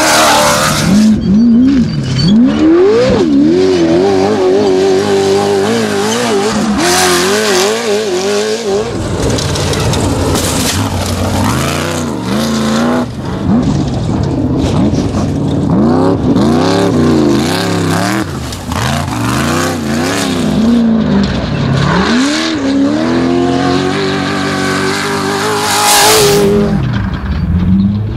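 Off-road race buggy engines revving hard as several cars pass in turn, the pitch climbing and dropping again and again with throttle and gear changes.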